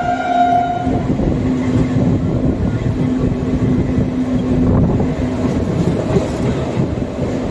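Indian Railways express train running on the track, heard from on board: a steady rumble of wheels and coach with a steady hum. A brief higher tone fades out in the first second.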